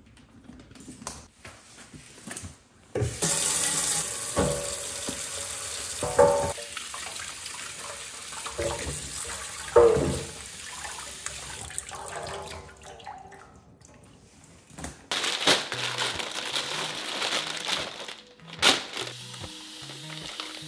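Kitchen faucet running into a stainless steel sink as a bunch of asparagus is rinsed under the stream, with a few knocks of the spears against the steel. A plastic bag rustles for the first few seconds before the water comes on.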